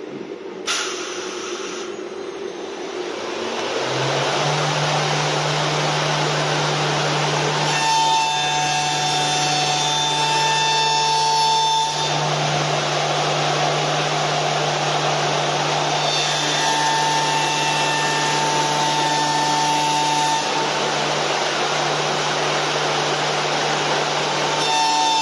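Wood CNC turning lathe running: a steady rushing machine noise grows louder, and a low motor hum comes in about four seconds in. A higher whine comes and goes three times, each lasting about four seconds.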